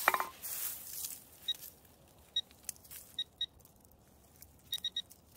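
Metal detector giving short high beeps over a dug metal target: single beeps, then a pair, then a quick run of three near the end. A short scrape of a digging tool in dry soil and pine needles at the start.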